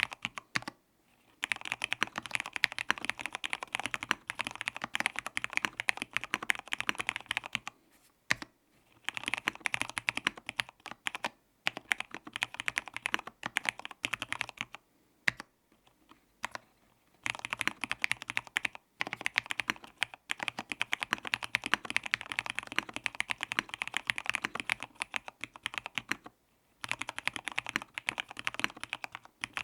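Fast typing on an mStone Groove F SF full-size mechanical keyboard with linear Cherry Red switches spray-lubed with Super Lube and PBT Cherry-profile keycaps. Rapid keystroke clatter comes in runs of several seconds, broken by short pauses.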